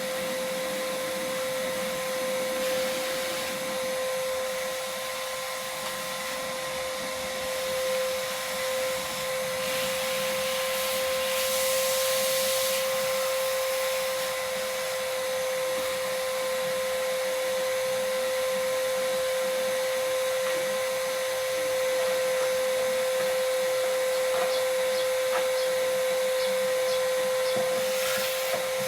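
An electric motor running steadily with an even high whine, like a vacuum cleaner or a similar detailing machine. There is a hissing burst about ten seconds in, lasting a few seconds, and another near the end.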